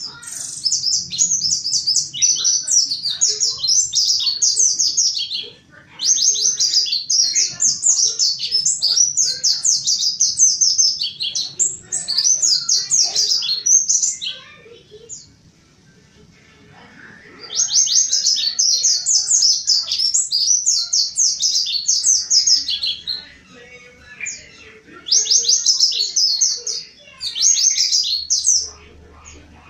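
Mountain white-eye (pleci montanus) singing hard: rapid, high-pitched twittering phrases of quick falling notes, in four long bouts with short pauses between them.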